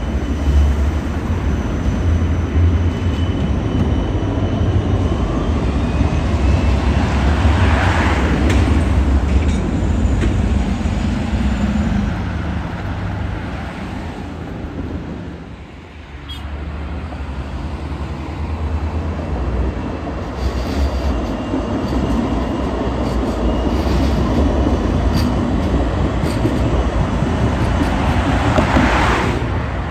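Siemens Combino low-floor trams passing on street track: a steady, loud rumble of wheels and running gear mixed with road traffic. The sound dips briefly about halfway through, then picks up again as another tram goes by.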